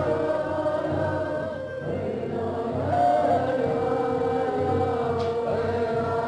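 Wooden Native American flute playing slow, long-held notes, with a voice chanting along.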